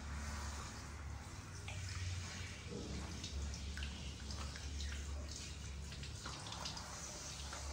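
Water splashing and dripping, irregular and crackly, over a steady low hum.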